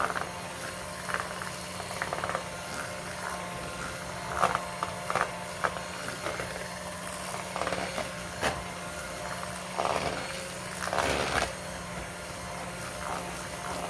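A spoon mixing cornbread batter in a bowl, with irregular scrapes and knocks against the bowl, over a steady low hum.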